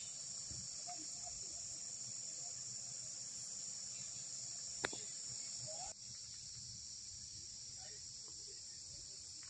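Steady, high-pitched chorus of insects chirring in tropical forest, with one sharp click a little before the middle.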